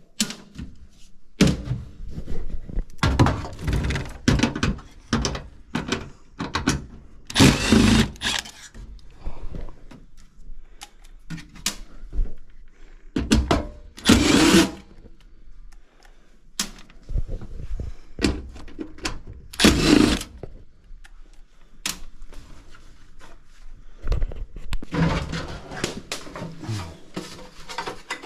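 Irregular knocks, thuds and clatter of hands and tools working on the metal cabinet of an air handler that is being freed from the wall, with a few louder clatters of about a second each.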